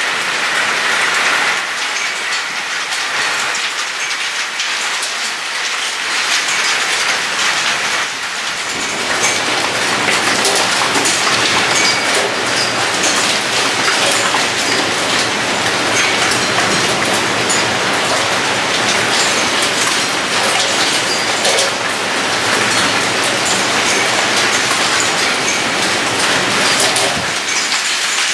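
Heavy hail with rain pelting the roof, gutter and window: large hailstones, almost as big as pigeon eggs, striking in a dense, continuous clatter that grows heavier about eight seconds in.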